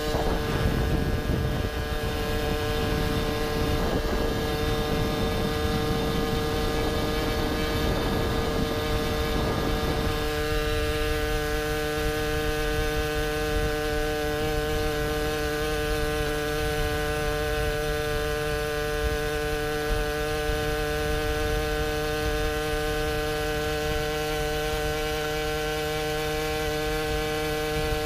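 Two-stroke engine of a Puch Maxi Luxe moped with a chambered expansion pipe, running at a steady pitch while cruising. Wind and road noise on the onboard microphone lie under it and ease after about ten seconds.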